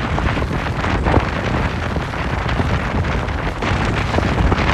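Hurricane wind gusting and buffeting the microphone: a steady rushing noise with a heavy, deep rumble.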